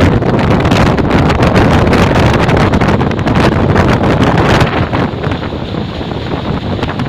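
Strong wind buffeting the microphone aboard a moving speedboat: a loud, gusty rush that eases off about four and a half seconds in.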